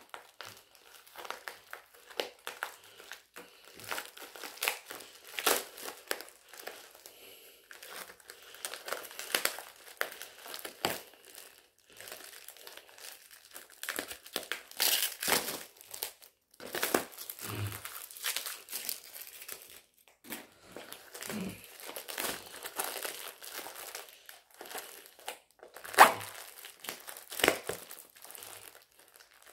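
Plastic packaging crinkling and tearing in irregular crackles as it is cut and pulled open with a knife, with one sharp, louder snap near the end.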